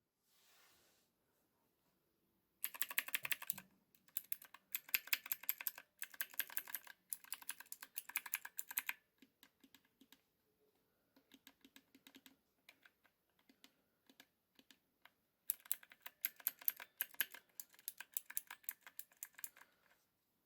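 Clicky blue mechanical key switches on a Divoom Ditoo pixel-art speaker's built-in keyboard being pressed in quick typing-like runs. There are two dense runs, from about three to nine seconds in and again from about fifteen to twenty, with a few scattered presses between them.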